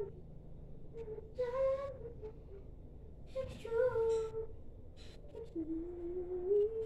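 A girl humming a wandering tune to herself in three short phrases, the last one rising slowly in pitch.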